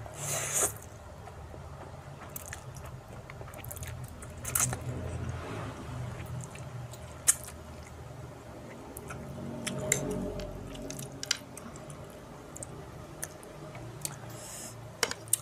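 A person slurping and chewing instant fried noodles close to the microphone: a short slurp right at the start, then wet chewing mouth sounds with scattered small clicks and a few more slurps.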